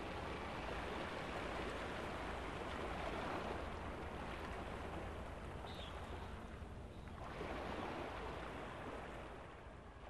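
Sea waves washing on a shore: a steady rush of water that swells and ebbs, rising twice.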